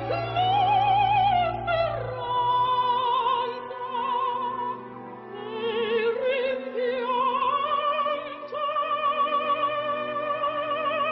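Background music: operatic singing of long held notes with a strong vibrato, the melody dropping about two seconds in and climbing again later.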